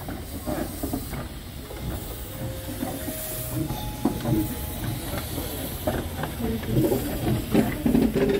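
Steam locomotive hissing steadily, over a low rumble and scattered clicks, growing slightly louder toward the end.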